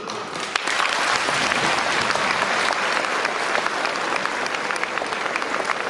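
Audience applauding: many hands clapping, swelling within the first second and then holding steady.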